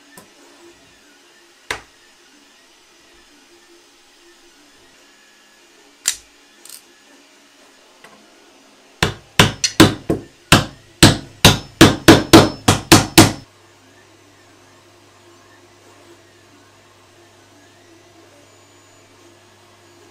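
A hammer tapping small magnets into holes in a polycarbonate dust-shoe plate: a few single knocks, then a quick run of about fifteen strikes, some three a second, lasting about four seconds.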